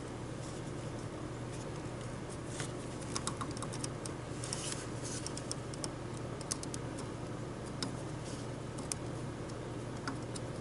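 Scattered faint clicks and crackles as a soldering iron melts rosin-core solder onto a circuit-board joint, thickest a few seconds in, over a steady low hum.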